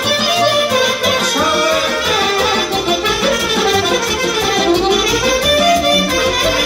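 Instrumental break in a Romanian folk-style dance song: a lead melody instrument plays winding runs up and down over the band's accompaniment, with no singing.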